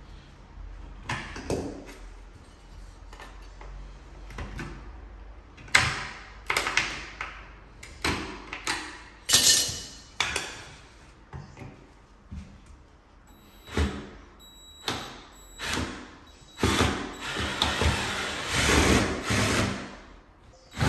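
Cordless drill-driver running in short bursts to back screws out of a skirting board, among knocks and scrapes of tools being picked up and set down. The drill work is heaviest in the last few seconds.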